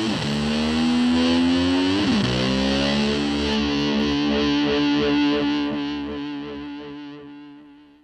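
Rock song with distorted electric guitar coming to its end: the pitch bends up and back down twice, then a held chord rings and fades out over the last few seconds.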